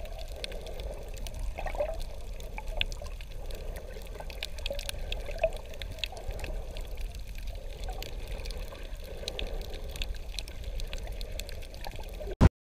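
Underwater sound picked up by a camera just below the surface over a coral reef: muffled sloshing and a low rumble, with many small clicks and crackles throughout. It ends with a sharp click and cuts off suddenly.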